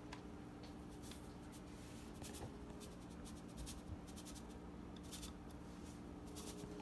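Faint scratching and a few light ticks as salt is tipped and shaken from a canister into a measuring spoon, over a steady low hum.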